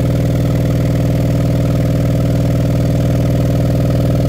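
Sundown Audio SDDN-12 12-inch, 3,500-watt RMS subwoofer playing a 20 Hz test tone in free air, its cone making long strokes. The result is a loud, steady, buzzy drone with many overtones.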